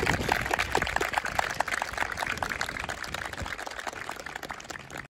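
Applause from a group of people, a dense patter of claps that gradually thins and dies down, then cuts off abruptly near the end.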